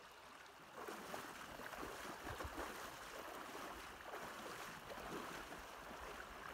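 Water sloshing and splashing as someone wades across a high, fast creek, starting about a second in, over the rush of the stream.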